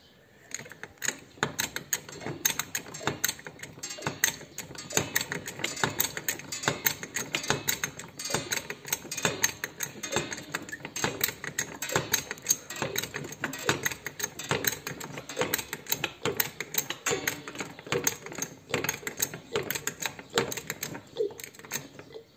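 Hydraulic trolley jack being pumped slowly up to full height, with a dense, irregular clicking and crackling that starts right at the beginning. Air is still trapped in the freshly refilled hydraulic oil and is being purged.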